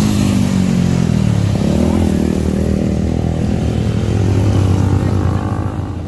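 Several motorcycles riding past in a group, engines running at moderate revs. The engine note falls over the first second and a half, then rises again and holds steady.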